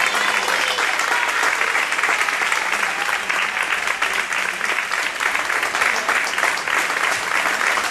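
Theatre audience applauding, many hands clapping together at a steady, even level.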